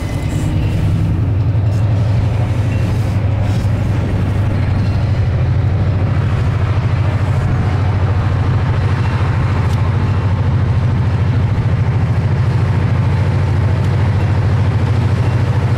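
EMD SW9 switcher locomotive's 567-series two-stroke V12 diesel running with a steady low drone as it pulls a short freight train. It grows a little louder about a second in as the locomotive approaches.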